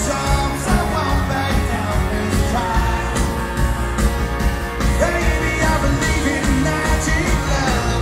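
Live rock band playing, with electric guitar, drums and a male lead voice singing, recorded from the audience.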